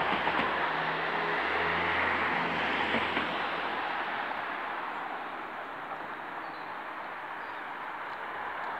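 A vehicle passing: a broad rushing noise with a faint low engine hum in the first few seconds, slowly fading away after about three seconds.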